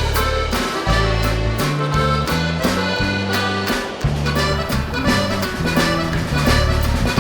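Upbeat background music with a walking bass line and a steady beat, carried by a reedy melody instrument like an accordion.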